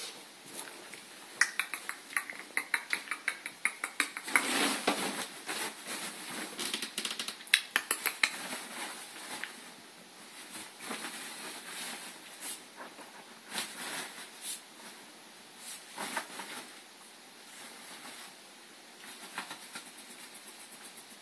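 A ferret playing on a duvet: runs of quick clucking clicks, about six a second, with the bedding rustling under it. The clicks come thickest in the first half and turn sparser later.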